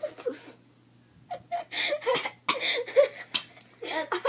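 Girls laughing and giggling in short bursts.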